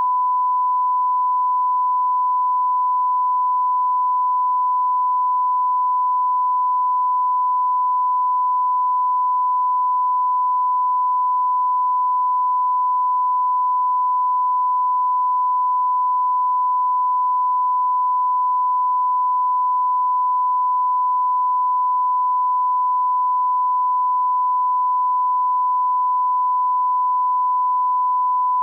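Continuous 1 kHz censor bleep: a single steady pure tone, unbroken and unchanging, standing in for swearing.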